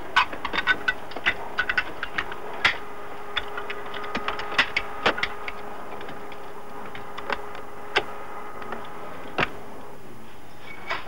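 Sharp metallic clicks and clunks of aerial-camera film magazines and their latches being handled and swapped. The clicks come thick and irregular for about five seconds, then only a few scattered ones, over a steady faint hum.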